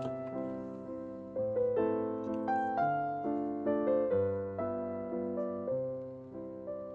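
Background music: a solo piano piece, with notes struck one after another and left to fade.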